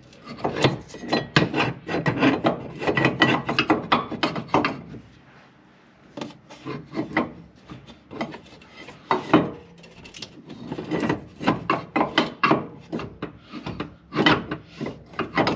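A bed-step part scraping and knocking against a steel frame bracket as it is pushed and worked into place, in a run of short rubbing strokes with a pause about five seconds in. The part binds on the bracket and will not go in.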